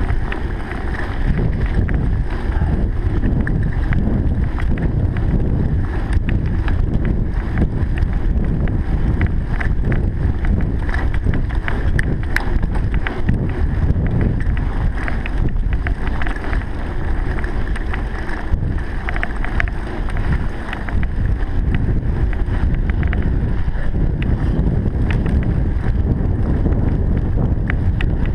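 Wind buffeting the microphone in a steady low rumble, with scattered clicks and rattles over it.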